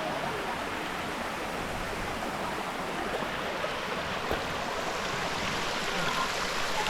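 Waterfall water cascading over rocks into shallow pools, a steady even rush.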